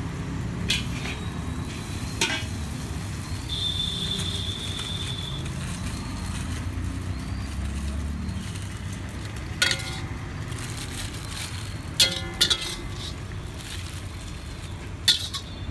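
A steel spatula knocking and scraping against an iron wok, about six sharp clanks, some ringing briefly, the loudest near the end. Under them runs a steady low rumble.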